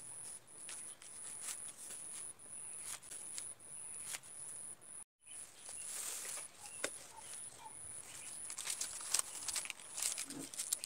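Coconut palm leaf strips rustling and crackling faintly as they are woven and bent by hand, with scattered small clicks that grow busier near the end.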